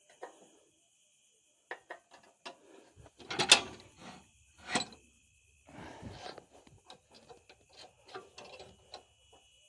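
Steel log dogs and log clamp on a Woodland Mills HM122 manual sawmill being set by hand: scattered metal clicks, clanks and ratcheting, with two louder clanks a few seconds in.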